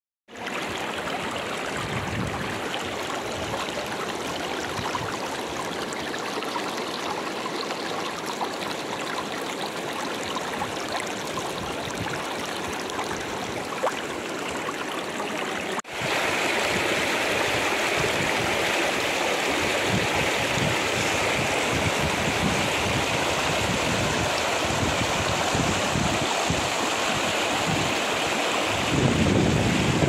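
Shallow river rushing over rocks in steady rapids. About halfway through it cuts abruptly to a louder, brighter rush, and a low gusty rumble swells near the end.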